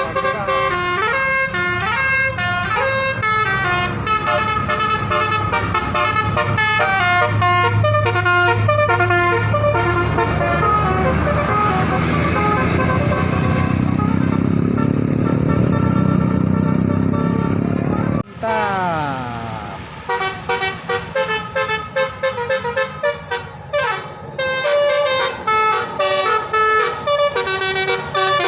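Telolet basuri multi-tone bus horns playing fast, tune-like runs of notes over a running bus engine. Shortly after the halfway point the sound breaks off sharply and a horn comes back with sliding notes before the stepped tunes resume.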